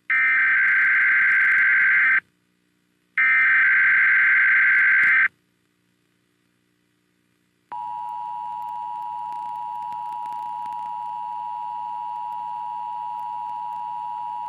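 Emergency Alert System tones: two loud, screechy SAME header data bursts of about two seconds each, a second apart. After a pause of a little over two seconds, the steady two-tone EAS attention signal starts and holds, somewhat quieter than the bursts.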